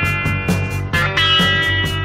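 Classic rock music: electric guitar over a steady drum beat.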